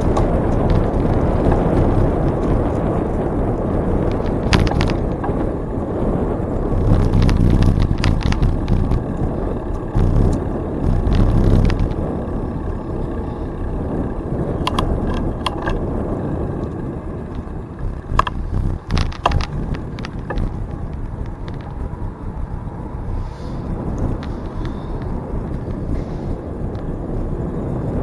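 Bicycle riding along a trail: steady rumble and wind noise, swelling and easing, with scattered clicks and rattles from the bike over bumps.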